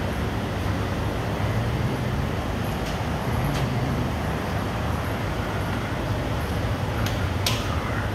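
Steady low rumble and hiss of background noise, with a few light clicks about three seconds in and again near the end.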